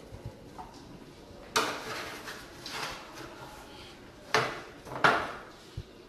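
Metal spoon and ladle clattering against a stainless steel sheet pan and bowl while roasted chicken bones are moved about: a sharp clank about a second and a half in, a lighter one after it, and two more close together near the end.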